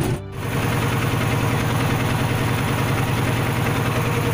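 Inboard engine of a wooden river boat running steadily, heard on board, with a rapid even beat; it cuts in just after a brief gap near the start.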